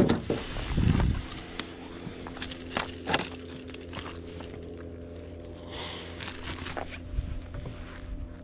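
Scattered knocks and rustling from handling in a small fishing boat, loudest at the start and about a second in, with a few more knocks later. A steady low hum runs underneath.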